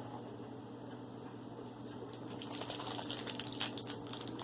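Plastic blind-bag toy packaging crinkling and clicking as it is handled and opened, sparse at first and denser from about halfway in, over a steady low hum.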